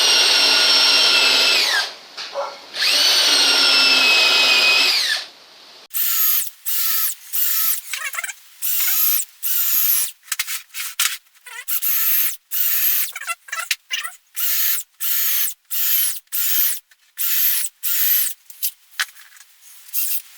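Power drill pre-drilling screw holes in purpleheart. Two long runs of a few seconds each, the whine dropping in pitch as each one stops, are followed by a quick series of short trigger bursts, about two a second.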